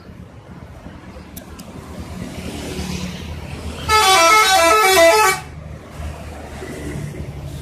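A bus 'telolet' horn plays a short melody of quick stepped notes lasting about a second and a half. It comes about four seconds in, over a low rumble of passing traffic.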